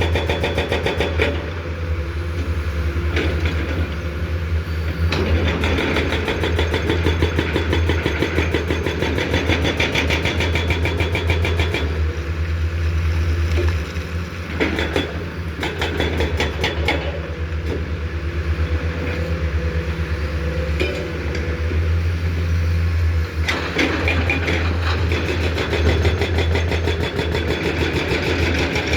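Komatsu PC210 hydraulic excavator's diesel engine running under working load, with a steady low hum. The engine note swells and eases several times as the hydraulics take up and drop load.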